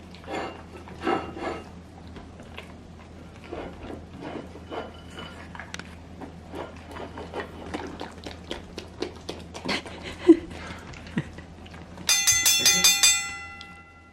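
A dog eating from a dish, with irregular clicks and taps of its mouth and the dish. About twelve seconds in, a bright chime-like sound effect rings for about two seconds.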